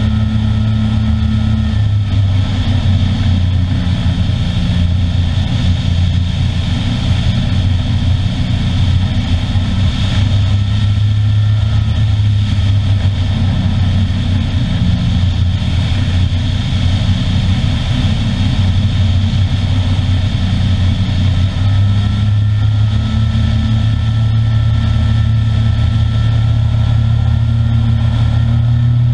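DAR Solo ultralight aircraft's engine and propeller droning steadily in flight, with air rushing past the strut-mounted microphone. The engine note rises a little near the end.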